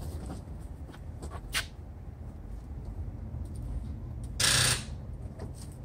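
Rustling and shuffling as a person climbs into a car's driver seat, over a low steady background rumble. There is a short click about a second and a half in, and a half-second burst of rustling noise about four and a half seconds in.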